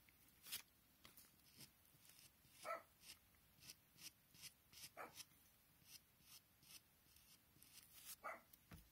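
Faint, quick scratches of a pencil tip flicked across paper in short hair strokes, about two a second. A few brief pitched squeaks come in among them, the loudest nearly three seconds in.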